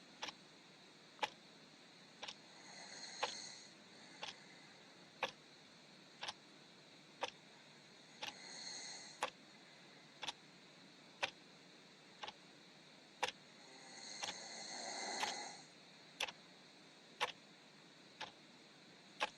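A clock ticking about once a second, with three quiet snores rising and falling roughly every six seconds.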